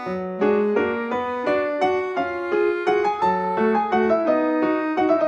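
Background music on a piano-like keyboard: a melody of single notes at an even pace, about three notes a second.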